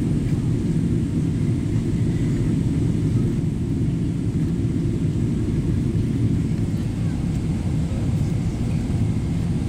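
Steady low rumble inside the cabin of a Boeing 777-300ER on descent, the mix of airflow and GE90 engine noise heard from a window seat.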